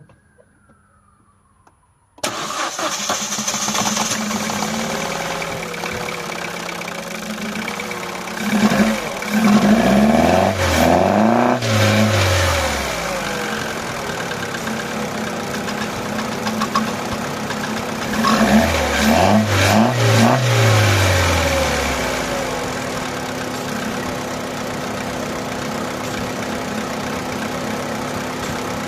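Opel Astra petrol engine firing up about two seconds in, then run up in revs twice and settling into a steady idle. It now starts after a fouled spark plug and a suspect ignition coil were replaced, with unburnt fuel from the long cranking still in the exhaust.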